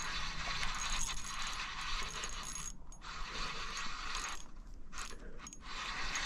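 Spinning fishing reel working against a hooked brown trout, its gears and drag giving a steady ratcheting rasp that stops briefly about three seconds in and again for about a second near five seconds in.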